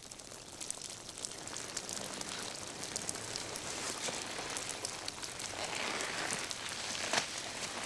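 A steady crackling hiss with louder rustles of a sleeping bag as the person inside it shifts, the strongest about six and seven seconds in.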